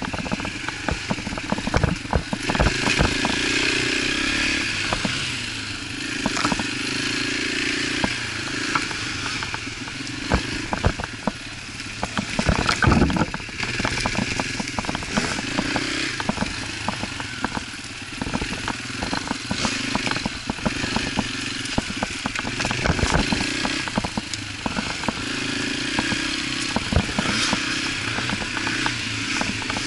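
A Yamaha TT-R125 dirt bike's single-cylinder four-stroke engine runs as the bike is ridden over a rough dirt trail, the engine note rising and falling with the throttle. Frequent knocks and rattles come from the bike over the uneven ground.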